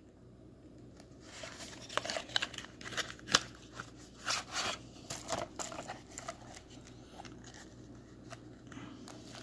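Coin packaging being handled: a cardboard box and a plastic presentation case rubbed, slid and opened, giving scattered scrapes, rustles and sharp clicks, busiest in the middle and quieter near the end.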